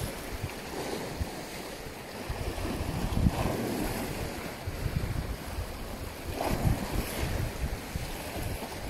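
Wind buffeting the microphone over the wash of the sea, with gusts swelling about three seconds in and again later on.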